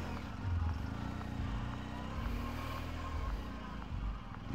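Motorcycle engine running as the bike rolls slowly at low speed, its pitch rising a little and easing off again around the middle.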